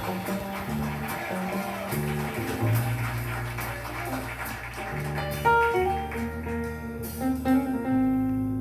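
Recorded jazz with guitar and bass, played back through a single-ended valve amplifier with an EL3N pentode output valve.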